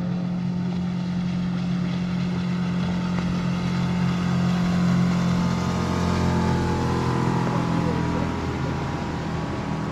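Motorboat engine running steadily across the water. It grows louder about five seconds in, and then its pitch drops slightly as the boat passes.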